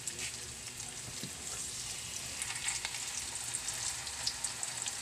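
Turon, banana rolls in lumpia wrappers, deep-frying in hot oil in a wok: a steady sizzle with many scattered crackling pops.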